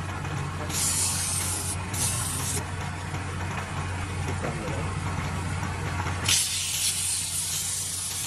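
Wood lathe motor humming steadily while a hand-held metal scraper is pressed against the spinning wooden vase, giving hissing scraping passes: short ones about a second and two seconds in, and a longer one from about six seconds in.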